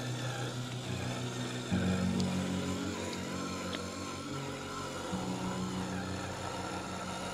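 An RC semi-truck's electronic engine sound unit playing a simulated diesel engine note while the truck crawls. The pitch jumps abruptly twice, about two seconds in and about five seconds in.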